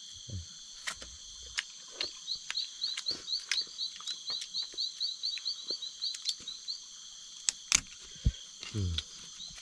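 Night insect chorus: a steady high-pitched drone with a rapid, repeated high chirping call over it, about three to four chirps a second, pausing twice. Scattered sharp clicks and cracks cut through it, the loudest a little before the eighth second, from crab shells being broken open while eating.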